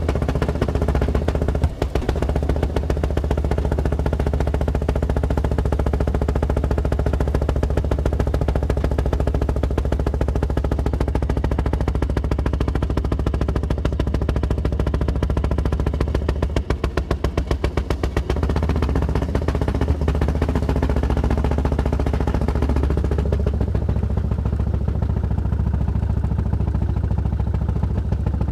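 Rail speeder (track motorcar) running along the track: a steady, loud engine drone with a strong low hum and a fast, even rhythm.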